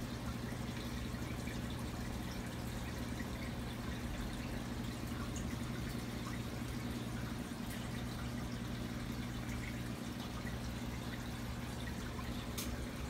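Aquarium water trickling and dripping at the surface, over a steady low hum.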